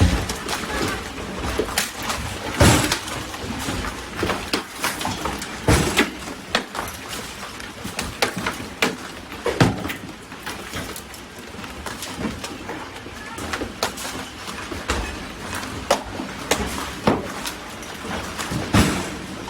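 Large hailstones pelting down, with a steady hiss of falling hail and rain. Loud, irregular impacts come every second or so, the heaviest about 3, 6, 10 and 19 seconds in.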